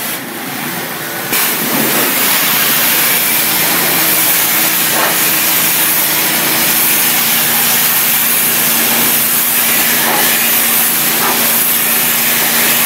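A 3000 psi hot-water pressure washer spraying an aggregate wall with plain water. The loud, steady hiss of the jet starts about a second in, with a steady hum underneath.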